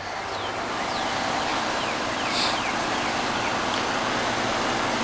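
Ruud central air-conditioner condensing unit running steadily, its compressor and condenser fan blowing a constant rush of air. A few short, faint falling chirps sound over it in the first few seconds.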